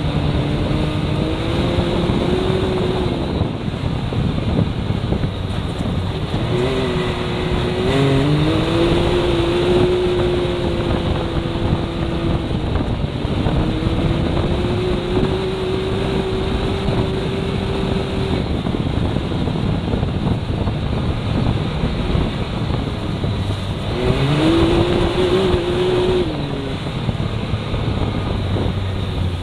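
Can-Am Maverick X3 side-by-side's turbocharged three-cylinder engine running under way, its pitch rising, holding and falling several times as the driver gets on and off the throttle, over steady road and wind noise.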